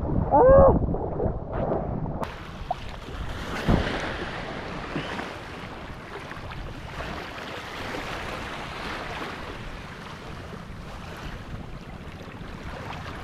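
Small waves washing and breaking in shallow water, with wind on the microphone, and one short knock about four seconds in.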